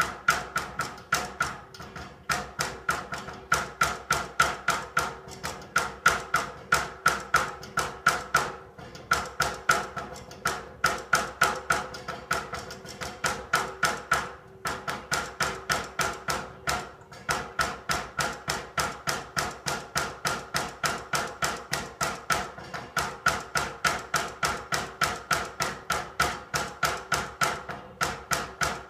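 Rapid metallic knocking in central-heating pipes or a radiator, about three knocks a second, each knock ringing briefly. The knocking keeps up through the whole stretch with only a few short breaks.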